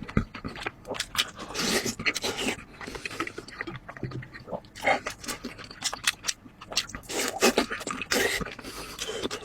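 Close-miked eating sounds: wet chewing and mouth smacks, a rapid run of short clicks with a few longer noisy smears.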